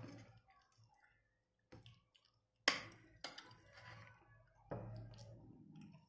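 Quiet mealtime sounds at a table: a few scattered soft clicks and clinks of a fork or spoon against a plate, the sharpest about two and a half seconds in.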